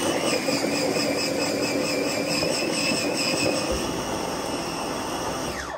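Electric food chopper (hachoir) running steadily with its blade spinning in a stainless-steel bowl, chopping fresh herbs, then shutting off abruptly at the end.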